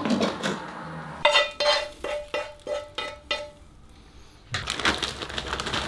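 A spoon stirring in a bowl of cream of rice, knocking and clinking against the bowl about seven times in two seconds with a short ring after each knock. Near the end a rustling noise starts.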